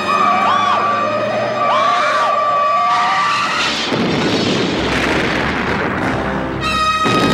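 A car-crash sound effect. A vehicle horn blares steadily while tyres screech in rising and falling squeals. About three and a half seconds in, a crash and explosion set off a loud rush of noise, and the horn tone returns near the end.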